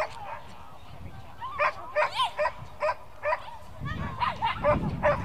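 Dog barking in a quick series of short, high barks, some sliding in pitch, about three a second, starting about a second and a half in.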